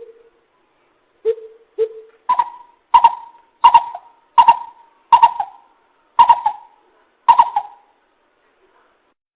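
Greater coucal lure call: a series of deep, hollow hoots. Two lower notes are followed by seven higher hoots spaced about two-thirds of a second apart.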